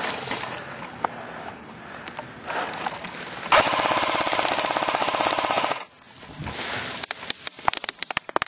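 Airsoft M60 electric machine gun firing one sustained full-auto burst of about two seconds, a fast, even rattle, starting about three and a half seconds in. Before it there is rustling of quick movement, and near the end scattered sharp snaps of single airsoft shots.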